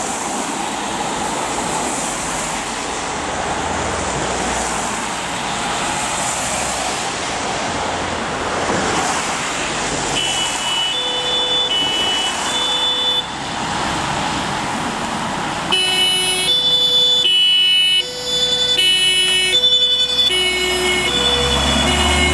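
Heavy rain hissing on wet pavement. About ten seconds in, a German two-tone fire-engine siren (Martinshorn) starts, alternating between a higher and a lower tone, and it becomes much louder about six seconds later. Near the end the vintage Mercedes LF 16 TS fire engine's diesel engine rumbles as it passes.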